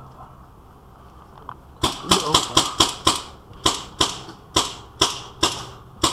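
Paintball marker firing a string of around a dozen sharp shots, about two to three a second, starting about two seconds in.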